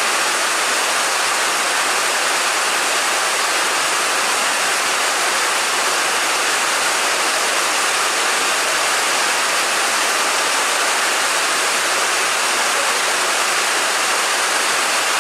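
Heavy monsoon rain pouring down, a loud, steady, even hiss with no other sound standing out.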